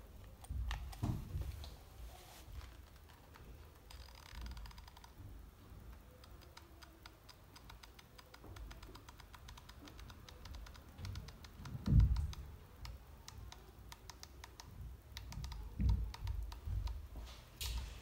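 Rapid light clicking and ticking as a hot glue gun is handled and its nozzle worked with the fingers, with a few dull low thumps, the loudest about two-thirds of the way through.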